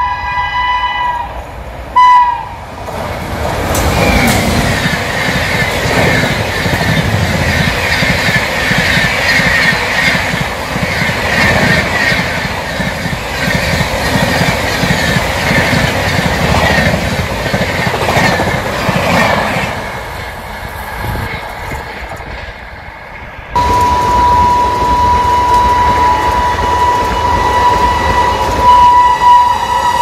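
Indian Railways locomotive horn sounding twice, then a passing express train's coaches rushing by with rapid wheel clatter that fades away. The sound cuts abruptly to another locomotive horn holding one long, shrill honk.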